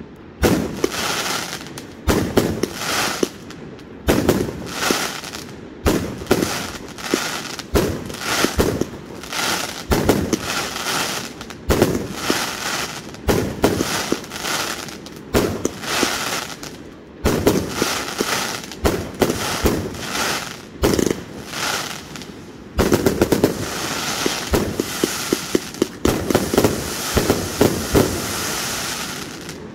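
A 132-shot consumer firework cake firing: shot after shot, about one to two a second, each followed by a crackling break. About 23 seconds in it turns into a dense, fast run of shots and crackle.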